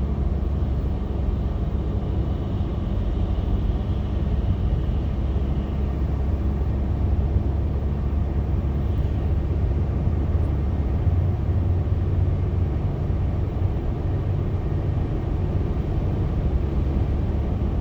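Steady low rumble of a car driving along a highway: tyre and engine noise heard from inside the cabin.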